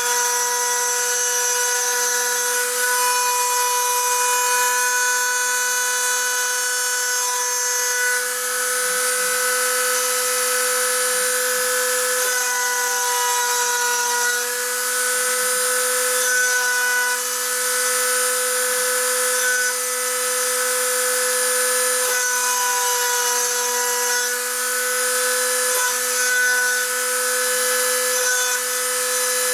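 A rotary-tool spindle on a 3D-printed CNC mill runs with a steady whine while its 2 mm two-flute end mill cuts 1 mm deep into chipboard, with a hiss from the cutting. Stepper motors add higher whines that change pitch every second or two as the axes move.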